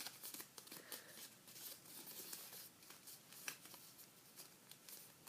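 Faint rustling and creasing of a sheet of paper being folded by hand, with a sharper tick about three and a half seconds in.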